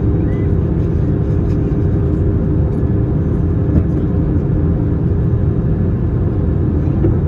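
Cabin noise inside an Airbus A321-231 on approach: the steady low rumble of its IAE V2500 turbofans and the airflow over the fuselage, with a steady hum running through it.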